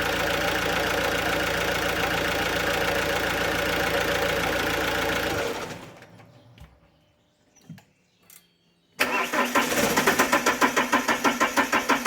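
Alfa Romeo 1.9 JTD 8-valve diesel engine running steadily, then cutting out about five and a half seconds in. After a few seconds of quiet the starter cranks it with a rapid rhythmic chug and it does not fire: the hot crank-no-start fault, blamed on a crankshaft sensor that goes open circuit when hot.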